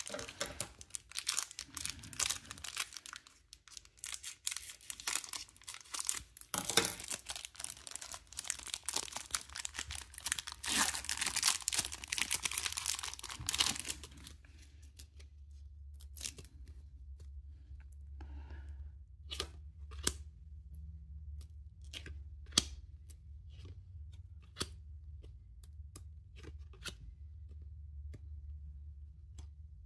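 Foil wrapper of a 1992 Fleer Ultra football jumbo pack being ripped open and crinkled for about fourteen seconds. After that come the sparse light clicks of the cards being handled and flipped through, over a faint low hum.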